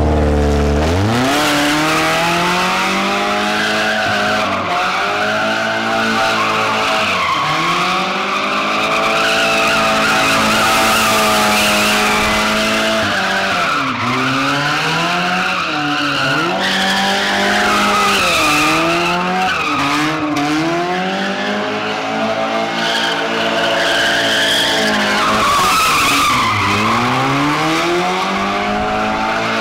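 Car engine revving hard and held high while the tyres squeal continuously through donuts. The engine pitch drops and climbs back several times. The engine runs with maple syrup in its crankcase in place of oil.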